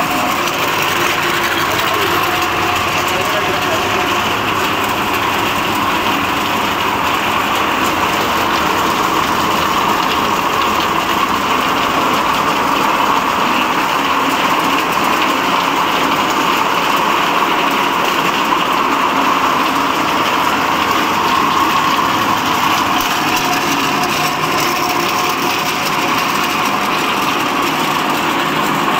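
Areca nut dehusking machine running steadily with nuts tumbling in its slotted drum while the husks are torn off. It makes a loud, constant mechanical whir and rush.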